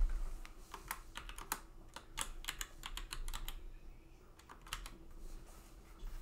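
Typing on a computer keyboard: quick runs of keystrokes, a short pause about four seconds in, then a few more keys. A low thump at the very start.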